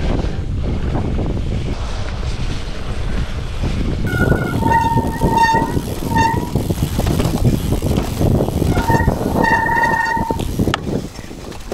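Mountain bike disc brakes squealing in held, shrill notes, a few seconds in and again near the end, typical of wet brakes on a snowy descent. Under them runs a steady rumble of tyres rolling over rough ground and wind on the handlebar camera's microphone.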